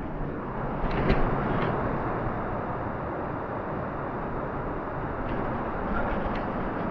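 Steady rushing cave ambience, a little louder about a second in, with a few faint clicks.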